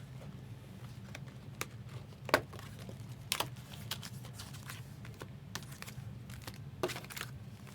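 A few scattered light clicks and taps of cardboard trading-card boxes and packs being handled, over a steady low hum.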